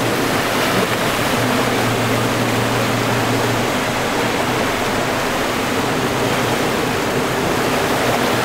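Steady rushing of white water from river rapids below a waterfall.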